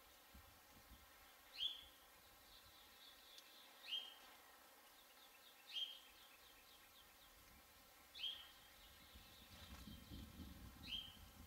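A bird's short, sharp call, falling in pitch, repeated five times about every two seconds, with a faint low rumble near the end.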